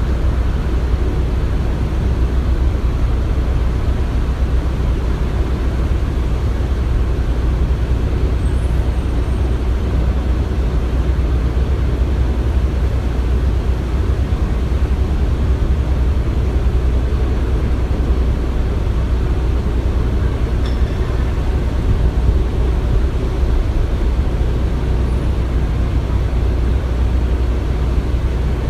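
Construction site ambience: a steady low rumble of heavy machinery engines, unbroken and even in level.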